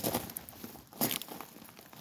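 Two sharp metallic clicks about a second apart, with scraping and rustling between them: tools and brake parts being handled during front brake reassembly.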